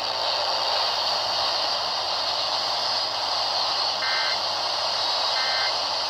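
Steady radio static hiss from a Midland ER210 emergency radio tuned off-station while its FM tuning is stepped, with two short beeps about four and five and a half seconds in.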